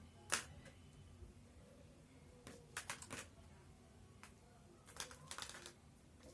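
Plastic parts of a baby-bottle sterilizer set being handled and fitted together: a sharp click just after the start, then two short runs of light clicks and taps, around three seconds in and around five seconds in.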